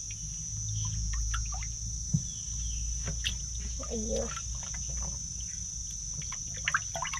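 Steady high-pitched drone of insects over a low rumble, with scattered small clicks and splashes of water as catfish and pangasius shift in a shallow plastic tub.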